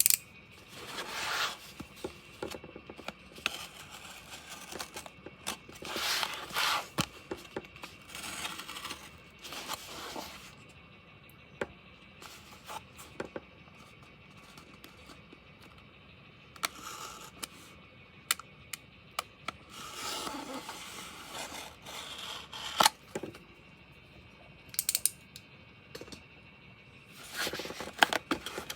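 Hand-handling noises, most likely packaging being unpacked: irregular scraping, rustling and crinkling in bursts, with sharp clicks and taps between them.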